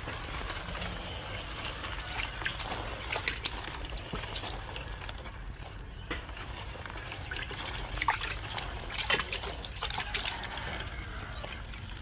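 Water trickling and splashing, with scattered small clicks and knocks.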